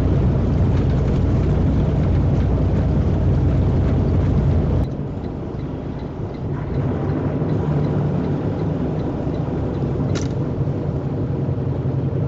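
Steady road and engine noise inside a vehicle cruising on a highway, a low rumble with a constant hum, as picked up by a dashcam's microphone. It drops suddenly about five seconds in and carries on a little quieter.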